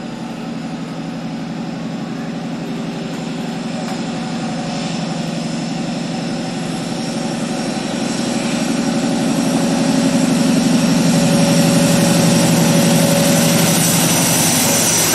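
InterCity 125 (HST) diesel power car approaching and passing close by: a steady diesel engine note with a high whine over it, growing louder as it nears.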